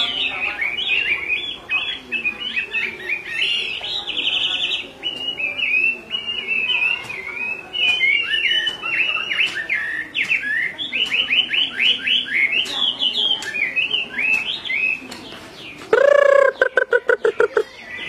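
Chinese hwamei singing: a fast, varied stream of high sweeping notes and short trills. Near the end a loud, lower-pitched pulsing sound breaks in for about two seconds.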